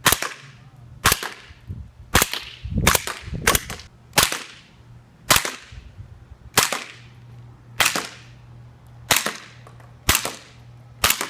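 Airsoft gun firing single shots, about a dozen sharp cracks roughly a second apart, a few closer together, each followed by a short echo.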